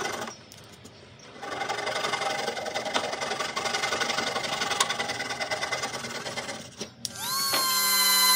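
Flush-cut saw sawing wooden dowel plugs off flush with the face of a board, a fast, dense rasping after a short pause. Near the end a palm sander switches on, its whine rising and then holding steady.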